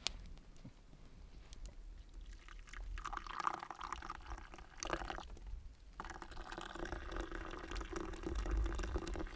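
Liquid pouring, in two spells: one starting about three seconds in and a longer, steadier one from about six seconds in.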